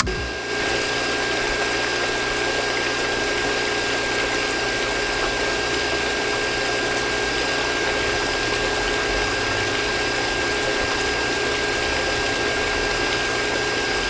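Small homemade DC-motor water pump running steadily: a constant motor whine with a thin high tone, over flowing water.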